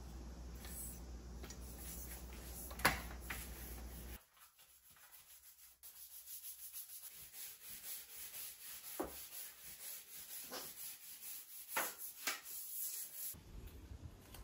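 Stiff bristles of a long-handled bathroom brush scrubbing tiled shower floor in quick, uneven back-and-forth strokes, starting about four seconds in. Before that, a low steady hum and one sharp click about three seconds in.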